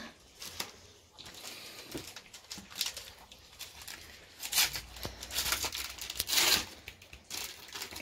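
Rustling and crinkling of a clear plastic snake-restraint tube shifting against a towel while a puff adder is held in it, with several short hissy bursts and one longer breathy rush of noise a little past the middle.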